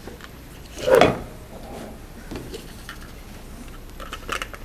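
A single loud clatter of serving dishes about a second in, then quieter room noise with a few faint clicks of plates and cutlery.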